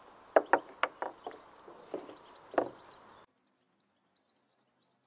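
Sharp clicks and clacks of a Glock 17 Gen 4 airsoft replica being taken apart by hand, as the barrel and recoil spring come out of the slide. About eight separate clicks in the first three seconds, then the sound cuts off abruptly.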